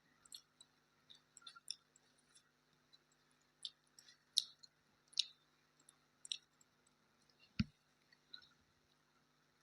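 Faint eating sounds: irregular small clicks and smacks of chewing a rice meal, with one dull thump about three quarters of the way through.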